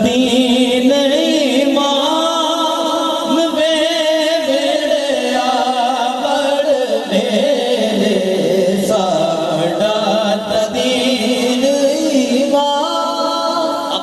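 A man singing a devotional Islamic kalaam (naat): long held, wavering melodic lines that shift pitch every few seconds.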